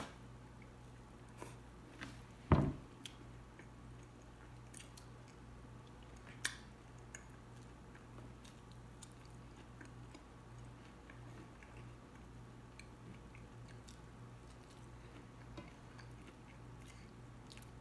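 A person chewing a mouthful of okra and roasted vegetables close to the microphone, with a few sharp clicks, the loudest about two and a half seconds in.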